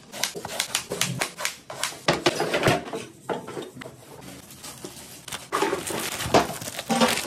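Irregular taps, clicks and crunches of gajak, a brittle sesame-and-jaggery sweet, being cut with a knife and handled on a large metal tray, quieter in the middle.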